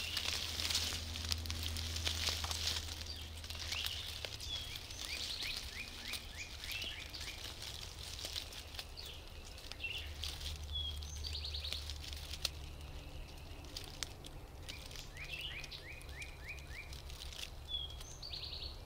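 A songbird singing a phrase of quick, short notes that it repeats several times, over a faint steady low hum.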